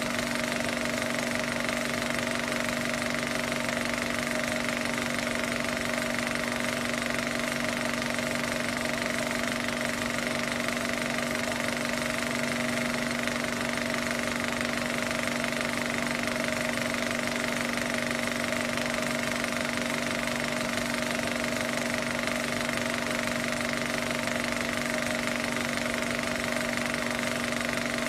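Film projector running: a steady mechanical clatter with a constant hum that never changes, even across a cut in the picture.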